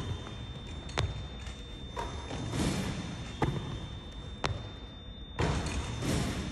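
Basketball thudding on a hardwood gym floor and around a Shoot-A-Way rebounding machine: five sharp impacts about a second apart, with two longer stretches of hiss-like noise between them.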